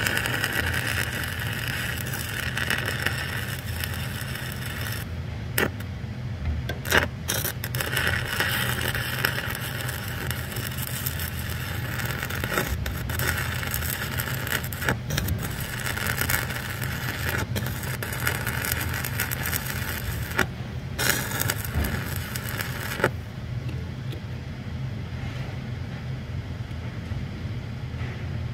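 Stick-welding arc of a Lincoln Excalibur 7018 1/8-inch electrode crackling and sizzling steadily while an overhead fillet weld is run on a steel stiffener plate. The arc breaks off briefly a few times and goes out near the end, leaving a steady low hum.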